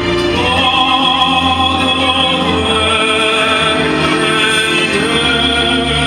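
Music with a singing voice holding long, wavering notes over orchestral accompaniment.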